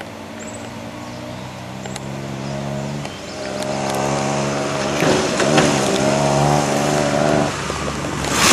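Chevy Sprint's small three-cylinder engine running at steady revs under throttle, growing louder as the car approaches. Its note fades out about a second before the end.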